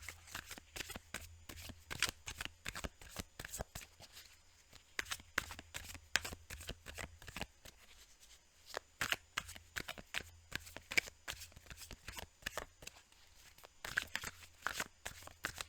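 Tarot cards being shuffled by hand: a fast, uneven run of card clicks and snaps, with two short pauses.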